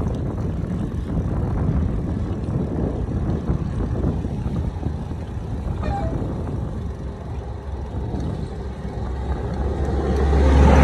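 Wind rumbling on the microphone of a phone tied to a moving bicycle, with road noise underneath. It swells louder near the end.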